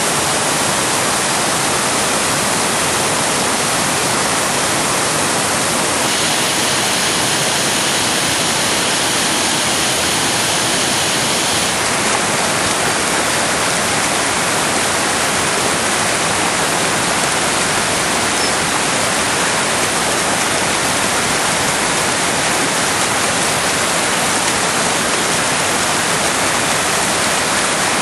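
Juvankoski waterfall and rapids: white water rushing steadily over rock close to the microphone, with no let-up.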